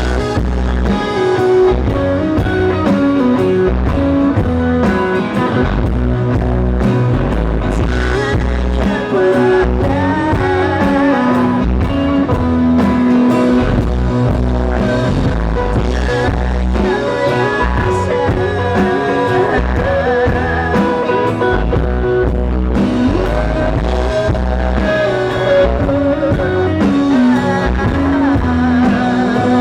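Live rock band playing loud: electric guitar, bass and drums, with a wavering voice line in places.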